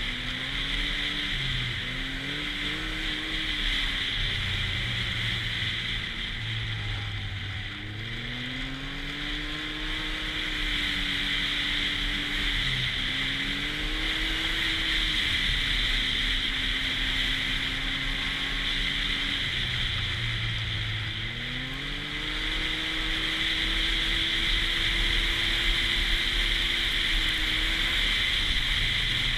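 Arctic Cat snowmobile engine running under way, speeding up and easing off several times so its pitch rises and falls, over a steady high whine.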